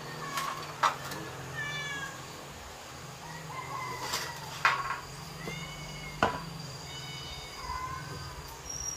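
Young pet macaques giving short, high, squeaky calls several times, with a few sharp taps and knocks among them.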